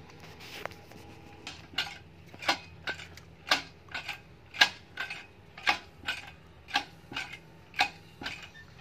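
Sharp metal-on-metal hammer strikes, about two a second, starting about a second and a half in, on the steel shaft and bearing housing of a Puzzolana jaw crusher during a bearing change.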